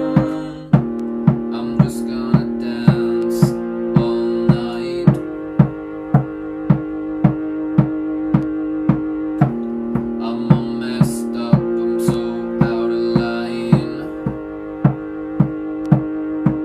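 Electronic keyboard playing held chords that change every few seconds, over a steady programmed drum beat of about two beats a second.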